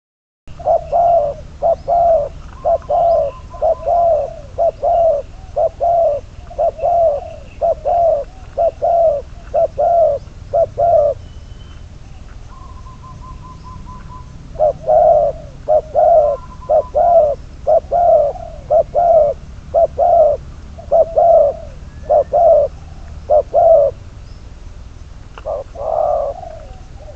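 Spotted dove cooing: a quick run of repeated coos, a pause of a few seconds, then a second run and two last coos near the end. Faint thin bird chirps and a steady low hum lie underneath.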